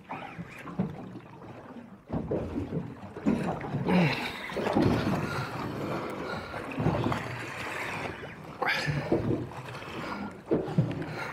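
Choppy sea slapping and sloshing against a small boat's hull in uneven splashes, louder from about two seconds in.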